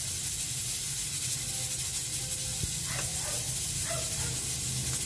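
Steady hissing noise throughout, with a single faint knock about two and a half seconds in.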